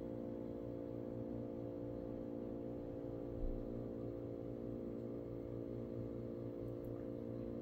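A steady low hum made of several even tones, like a running appliance or motor in the room. There is one faint soft bump about three and a half seconds in.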